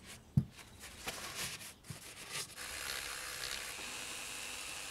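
Kitchen roll rubbed and scrunched inside a motorcycle fork stanchion, with one knock about half a second in. From about two and a half seconds a Dremel rotary tool runs steadily with a thin whine and hiss, cleaning salt and crud out of the aluminium fork leg's seal seat and retaining-clip groove.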